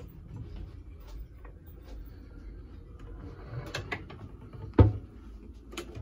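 A hinged wooden countertop lid is lowered over a stainless-steel galley sink. A few light clicks and a brief scrape come first, then it shuts with one sharp wooden knock about three-quarters of the way in, followed by a small click.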